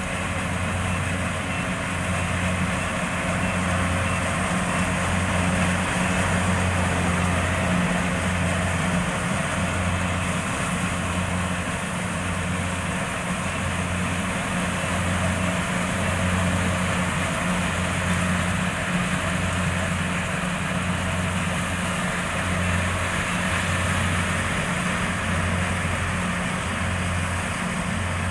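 Rice combine harvester running steadily: a low engine hum that swells and fades every second or two, over a continuous mechanical rush.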